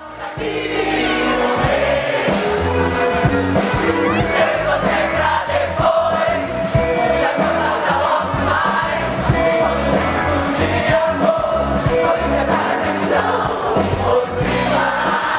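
Live band music with a woman singing lead into a microphone, other voices joining in, over steady bass and drums.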